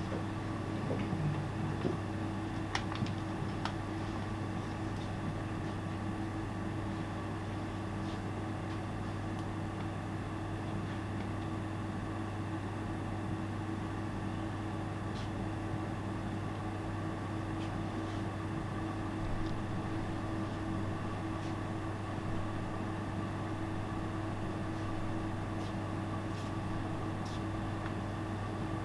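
Steady machine-like room hum with a low drone and a few faint held tones, broken now and then by faint ticks and small knocks.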